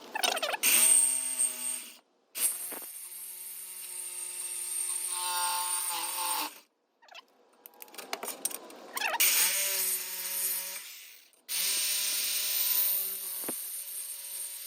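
Corded reciprocating saw cutting through a car's exhaust pipe, running with a pitched motor whine in four runs that stop and restart, with scattered clicks during the longest pause.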